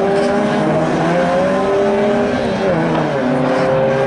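Engines of several Folcar-class rallycross cars running together as a pack laps the circuit. Their overlapping notes rise and fall as the drivers accelerate and lift off.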